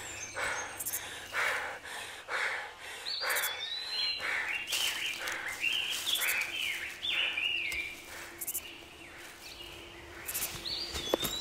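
Footsteps running through dry leaves, about two strokes a second, over a forest ambience of birds chirping. The birdsong is strongest in the middle and returns near the end.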